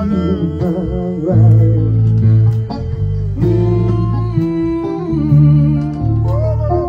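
Live band music: a man singing a drawn-out, wavering melody without clear words over guitar and low sustained bass notes.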